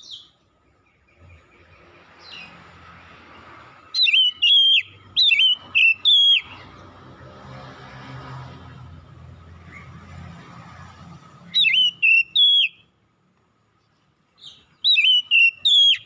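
Oriental magpie-robin singing loud, clear whistled phrases, each a quick run of sweeping notes. The song comes in three bursts: about four seconds in, again near twelve seconds, and once more near the end.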